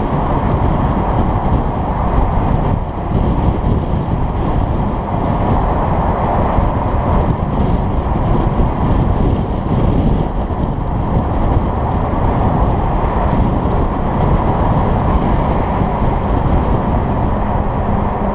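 2011 Jaguar XKR 175's supercharged 5.0-litre V8 exhaust running steadily on the move, with fuse 19 pulled to open up the exhaust, mixed with wind rush on the camera's microphone.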